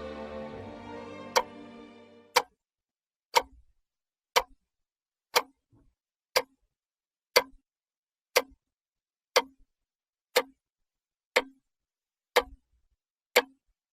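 A clock ticking once a second, thirteen sharp ticks in a row with silence between them. Music fades out during the first couple of seconds.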